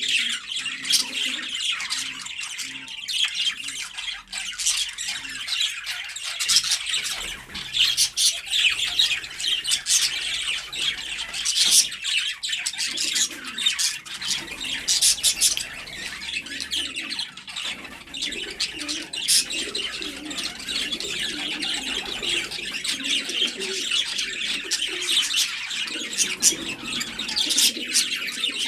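A flock of birds chirping and twittering continuously, with low cooing underneath that grows stronger in the second half.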